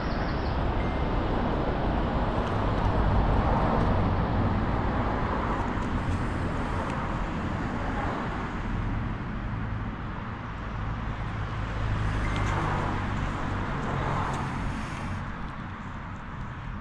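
Steady road traffic noise with a low engine hum, swelling a little now and then as vehicles pass.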